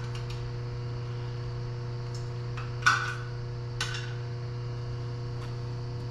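A couple of light metallic clinks, the loudest about three seconds in and a smaller one a second later, over a steady low hum: tools and small pieces of a broken timing chain and its guides being handled inside the engine.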